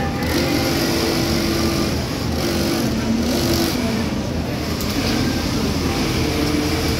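Industrial sewing machine with a roller puller stitching checked shirt fabric, heard over the steady din of a garment factory floor full of running machines.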